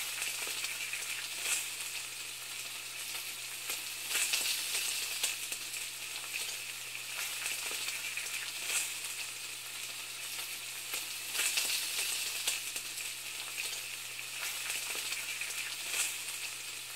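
Food sizzling in a hot pan: a steady crackling hiss that flares up louder every few seconds, over a low steady hum.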